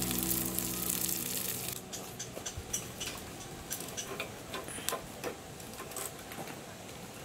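Background music fading out in the first two seconds, followed by scattered, irregular light clicks and ticks.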